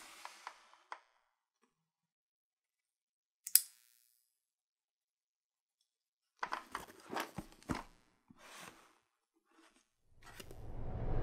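A product box and its packaging being handled and opened by hand: a few small clicks, one sharp snap about three and a half seconds in, and a cluster of crinkling and rustling a few seconds later. Near the end a whoosh rises and swells.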